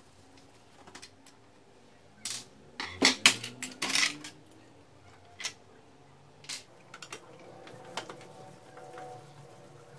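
Hard plastic parts of a laser printer clicking and rattling as a black plastic guide assembly is unclipped and pulled out by hand, with a burst of clatter about three to four seconds in and a few single clicks after it.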